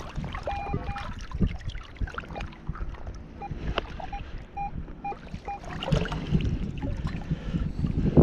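A metal detector gives short, same-pitched beeps, a couple about half a second in and then about six more in quick succession, over water sloshing around the legs and scoop in shallow river water. The beeps signal that the target is still in the dig hole.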